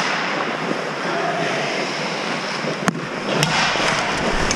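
Ice hockey skates scraping across the rink ice, with a few sharp clacks, the loudest about three seconds in.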